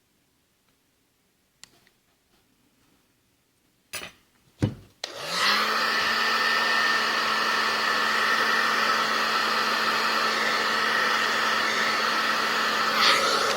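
A couple of clicks, then a small electric hot-air blower switches on about five seconds in. Its motor spins up to a steady whine under a loud rush of air, and it runs for about eight seconds before switching off near the end.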